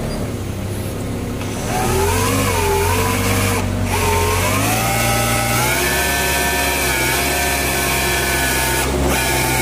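Cat forklift's engine running with a hydraulic whine as the roll clamp is rotated by its hydraulic rotator motor, being test-run after a seal change. About two seconds in the sound gets louder and the whine rises in pitch, then holds steady.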